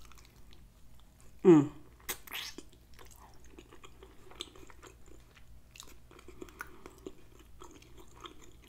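Close-up chewing of a mouthful of meat, with soft wet clicks and small crackles. About a second and a half in, the eater gives a short hum, the loudest sound here.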